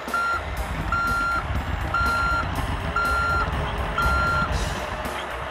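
Construction-vehicle reversing alarm beeping five times, about once a second, over a low engine rumble: a heavy-machine sound effect dubbed onto the hand-moved toy excavator.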